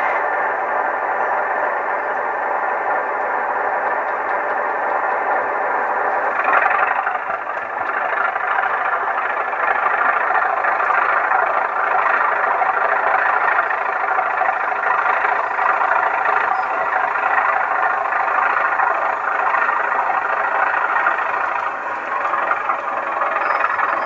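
Class 37 diesel engine sound, a recording of the English Electric engine, played through the small onboard speaker of a 7mm-scale Heljan model locomotive from a Zimo MX696 DCC sound decoder. It runs steadily with little bass and gets louder from about ten seconds in.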